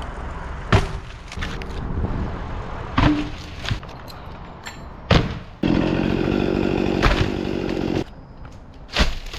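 Cut log sections of a dead tree dropping and smashing into each other, giving heavy wooden thuds about every two seconds, five in all. Between the middle thuds an engine-like buzz starts abruptly and runs steadily for about two seconds before cutting off.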